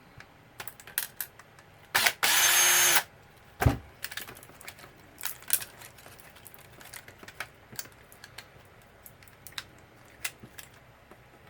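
A handheld power driver runs in one short burst about two seconds in, whining up to speed and holding for about a second. A thump follows, then scattered small clicks and taps as screws and plastic parts are handled during the teardown of the label machine.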